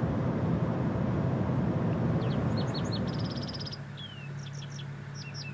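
Steady road noise inside a moving pickup truck's cab, giving way a little past halfway to small birds chirping, with a fast trill and short down-slurred calls, over a steady low hum.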